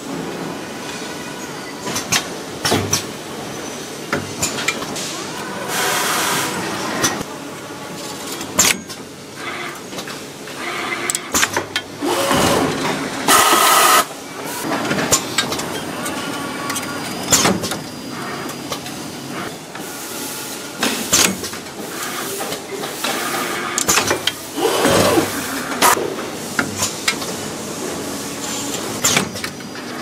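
Factory machinery on a condenser core assembly line running, with frequent metallic clicks and clanks and several bursts of hiss, the loudest a little before halfway.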